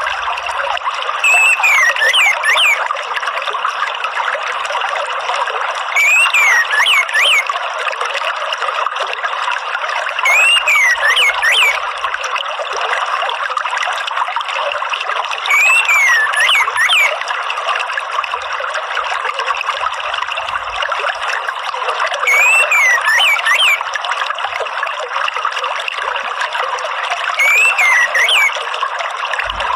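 Water trickling steadily, with a short whistled orange-headed thrush (anis merah) phrase of quick rising and falling notes sounding six times, a few seconds apart.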